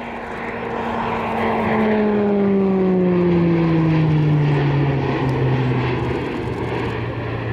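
Twin-turboprop E-2C Hawkeye, its Allison T56 engines and propellers, flying past. The propeller tone swells to a peak a few seconds in, and its pitch falls steadily as the aircraft goes by and away.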